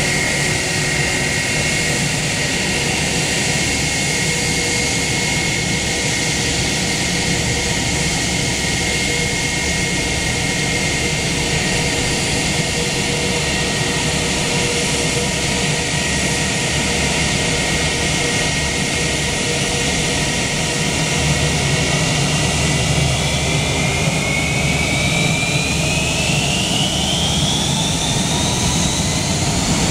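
Airbus A319's twin IAE V2500 turbofan engines running at low thrust with a steady whine as the jet moves on the runway. About two-thirds of the way through the whine starts to rise and keeps climbing: the engines spooling up for the takeoff roll.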